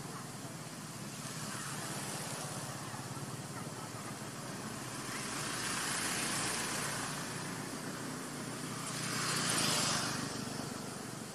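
Road traffic: a steady hiss of vehicles that swells three times as cars pass, the loudest swell near the end.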